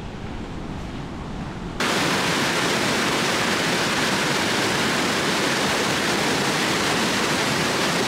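A quiet background hush, then about two seconds in a sudden cut to the loud, steady rush of a waterfall cascading over rock ledges.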